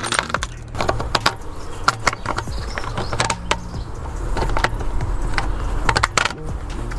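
Irregular metallic clicks and clinks of hand tools and small metal parts as nuts are fitted and tightened on a Honda GX120 engine's carburettor.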